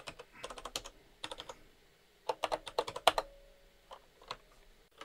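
Computer keyboard typing in several short bursts of rapid keystrokes with brief pauses between them.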